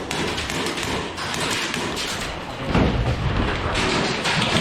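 Knocks, taps and thuds in an indoor airsoft arena, with one heavier low thump about three seconds in.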